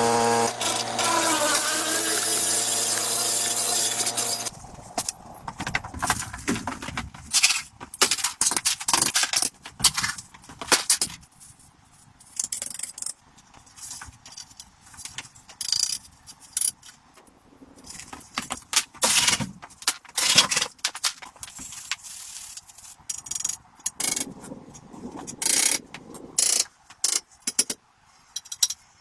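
An electric power tool runs steadily with a pitched whine and stops abruptly about four seconds in. After that come irregular clicks, knocks and scrapes of tools and wood being handled.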